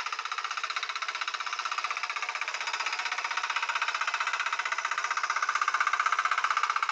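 Small engine of a walk-behind mini tiller running steadily with a rapid, even pulse as its tines dig into the soil, growing louder toward the end.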